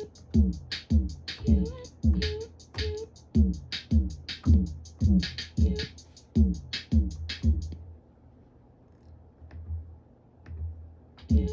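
Looped electronic drum beat from a Korg Kaoss Pad sampler: deep kicks that fall in pitch, about two a second, under sharp crisp hits. About two-thirds of the way in the loop cuts out, leaving only a few faint clicks, then drops back in just before the end.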